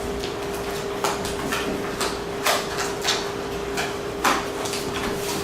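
Folding display panels being handled and fitted together: a series of short scrapes and knocks, roughly one or two a second, over a steady hum.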